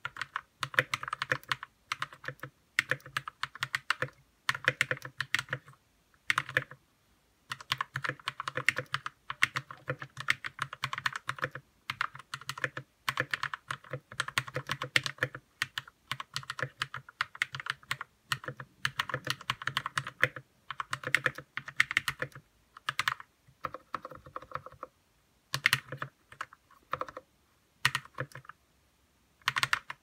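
Fast typing on a Royal Kludge RK61 mechanical keyboard with lubed linear red switches and Krytox 205g0-lubed stabilizers: dense runs of keystrokes broken by short pauses every few seconds.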